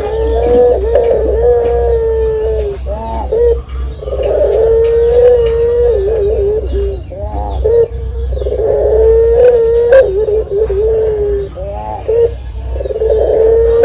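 Caged collared dove (puter) cooing: a long drawn-out held coo followed by a short broken run of notes, three times over, about every four seconds, with a fourth coo starting near the end. These are the long 'ngelik' coos that fanciers use as a master and lure recording.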